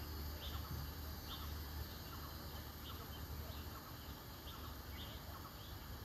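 Outdoor ambience: faint, short high chirps of small birds repeating irregularly every half second to a second, over a steady low rumble.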